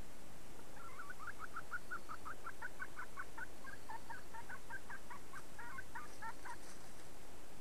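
Red junglefowl hen clucking: a quick run of short clucks, about four a second, starting about a second in and stopping about a second before the end.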